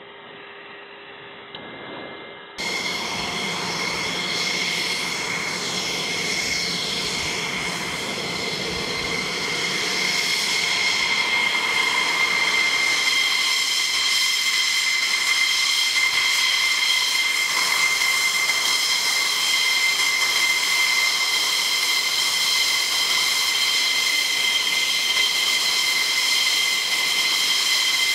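F-16 jet engine idling as the fighter taxis in on the ramp: a steady high-pitched whine of several held tones over a rushing hiss. It starts muffled and quieter, jumps up about two and a half seconds in, and grows a little louder about ten seconds in as the jet comes closer, then holds steady.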